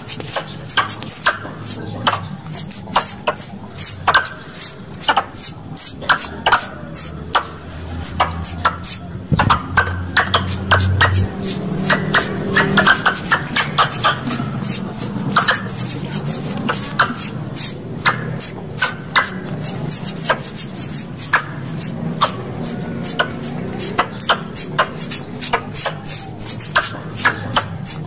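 Squirrel calls: runs of rapid, high-pitched chips, several a second, broken by brief pauses, the kind of call played as a lure to draw pest squirrels.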